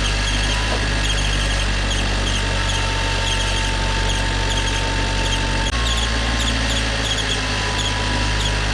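A Nissan Juke's 1.6-litre turbocharged four-cylinder idling just after a start. Light, high chirps repeat a few times a second over the idle, and the idle note shifts slightly about six seconds in.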